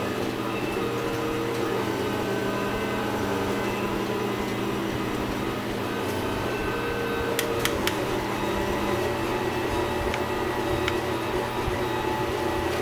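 MendelMax 3D printer running a slow print, its speed turned down to 12%: stepper motors whining in steady tones that change pitch every second or two as the hot end moves, over a constant low hum. A few sharp clicks about seven and a half seconds in.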